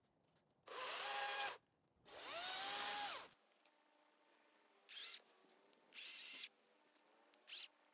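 Battery-powered chainsaw triggered in five short bursts, its electric motor whining up to speed and winding back down each time. The first two bursts last about a second and are the loudest; the last three are shorter and quieter.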